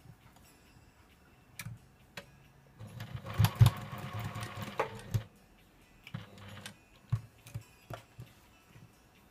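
Juki sewing machine stitching a hem in fabric: a run of a little over two seconds, then a shorter run. Scattered clicks and knocks fall before and after the runs.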